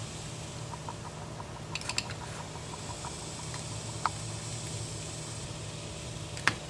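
Small clicks and taps of hands at work soldering a jumper wire onto a power window switch: a few close together about two seconds in, one near four seconds and a sharper one near the end, over a steady low hum.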